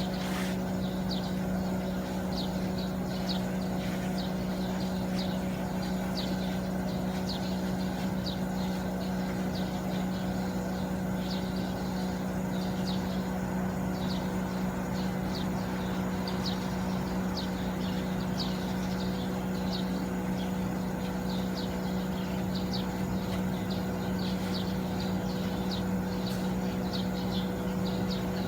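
Teco MS-LV36IH air conditioner running steadily with a constant low hum; the high-pitched electrical whine it is known to develop has not yet appeared. Short high bird chirps sound on and off throughout.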